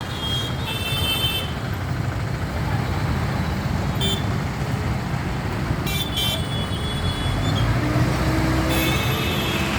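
Road traffic running steadily, with vehicle horns giving several short toots.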